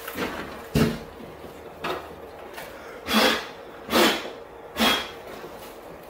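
Five short handling noises, about a second apart, as hands work at the third-brake-light opening on the pickup's cab roof; the middle three are the loudest.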